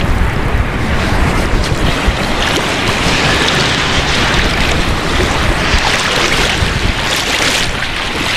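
Wind buffeting the microphone over the steady wash of surf breaking on a sandy beach; the surf's hiss grows stronger through the middle.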